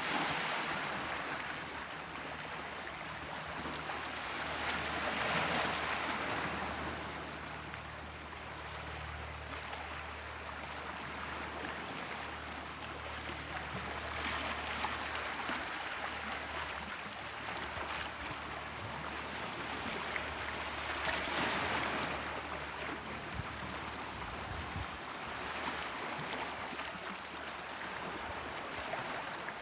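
Gentle Mediterranean Sea waves washing onto the shore, the rush of water swelling and fading every few seconds.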